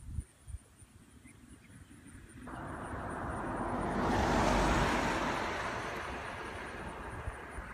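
A vehicle passing by: a rushing road noise that swells up about a third of the way in, peaks near the middle and slowly fades away.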